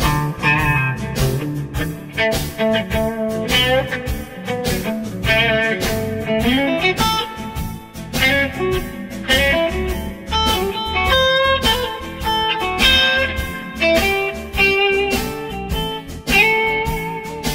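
Background music: blues-style guitar playing over a steady beat, with some notes sliding up in pitch.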